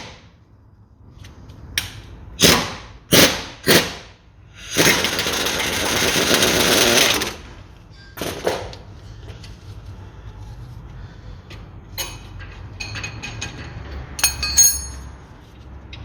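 A few sharp metallic knocks, then a power tool runs in one loud burst of about two and a half seconds as the bolt and nut of the front suspension ball joint are undone. Light metal clinks follow near the end.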